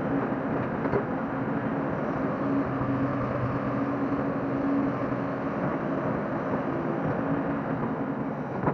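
Hyundai hydraulic excavator's diesel engine running steadily under load while it digs into soil and lifts a full bucket, a constant steady hum.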